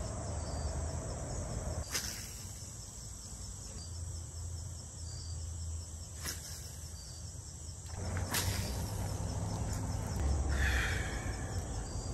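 Outdoor ambience with insects chirping steadily, broken by a few sharp clicks about two, six and eight seconds in and a short higher sound near the end.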